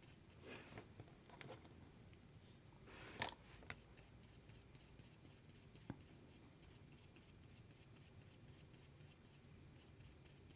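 Faint paintbrush strokes on paper, with a few light clicks, over a quiet room.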